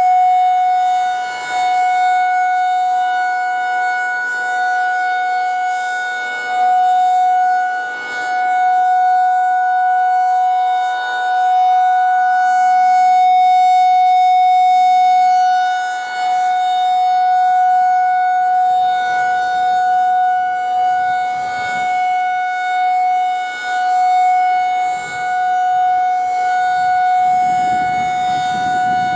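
Federal Signal 2001 rotating electromechanical outdoor warning siren sounding a steady wail at full speed for a routine test. The pitch holds level while the loudness rises and falls every few seconds.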